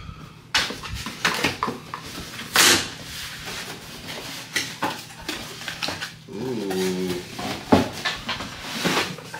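Cardboard shipping box being opened by hand: flaps rustling, scraping and tearing, with a loud rustle about two and a half seconds in and sharp knocks as the box is handled. About two-thirds of the way through comes a short wavering voice-like sound.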